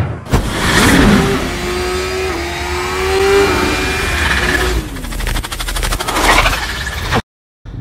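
Engine revving sound effects mixed with whooshes, with the engine pitch gliding up and then falling away, laid under an animated logo sequence; the sound cuts out abruptly for a moment near the end.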